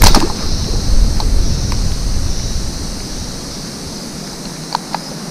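Fishing slingshot shot off with a sharp snap at the start, followed by a low wind rumble on the microphone that swells about a second in and then fades, under a steady high hiss. A few light clicks from the line reel come near the end.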